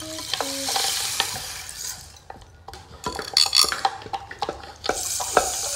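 Water being stirred and sloshed, with many scattered clicks and taps. A couple of short pitched notes sound in the first second.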